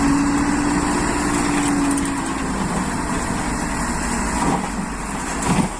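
Dump truck diesel engine running while its hydraulic hoist raises the loaded bed and tips out the soil, with a steady whine over the first couple of seconds.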